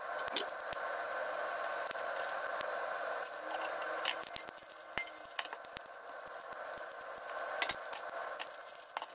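Long green chili peppers sizzling steadily in oil in a frying pan, as they are salt-fried, with a few light clicks and taps of kitchen utensils.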